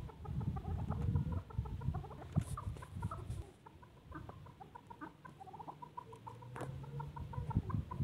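Caged chukar partridges calling: a rapid series of short, evenly pitched call notes, over a low rumble that drops away about three and a half seconds in.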